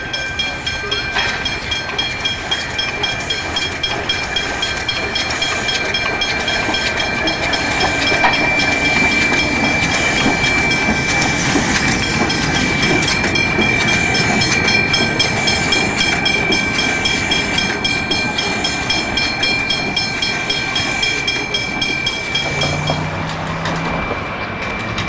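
K class 2-8-0 steam locomotive K183 working along the line: dense exhaust beats, rod and wheel clatter and hissing steam, louder through the middle as it passes close. A steady high-pitched ringing, the level-crossing bells, runs throughout.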